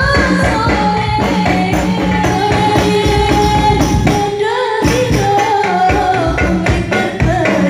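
Women singing sholawat, an Islamic devotional song, into microphones, over a steady percussion accompaniment.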